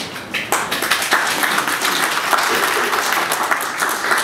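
Audience applauding, many hands clapping together, starting about half a second in.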